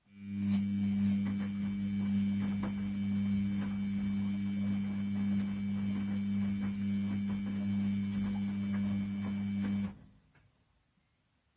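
Washing machine drum motor running with a steady electric hum and light clicking from the load tumbling in the drum. It runs for about ten seconds, then cuts off abruptly, as the drum pauses in the wash cycle.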